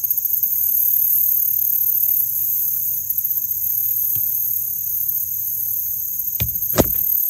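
Steady, high-pitched chorus of insects, a continuous shrill buzz in two pitch bands. It is broken by a few sharp clicks about a second before the end.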